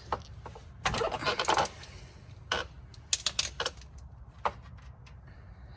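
Ratchet with a 13 mm socket clicking and clinking on the oil drain plug as it is worked loose: a quick run of clicks about a second in, then a few more scattered clicks and a short burst past the middle.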